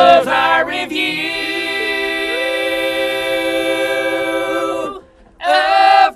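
A group of men singing in harmony, holding one long chord for about four seconds, then a short break and a brief loud sung phrase.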